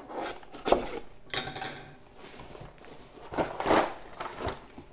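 A cardboard jigsaw puzzle box being opened and handled: a sharp knock a little under a second in, then scraping and rustling of the cardboard box and its lid, with a longer spell of it about three and a half seconds in.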